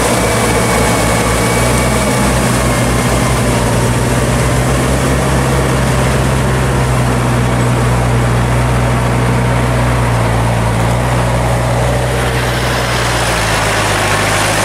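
Iseki crawler tractor's diesel engine running steadily under load as it pulls a rotary tiller through a wet rice paddy. The engine note changes near the end.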